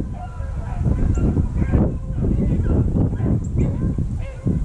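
Heavy wind buffeting the microphone, with rabbit hounds faintly baying on a trail.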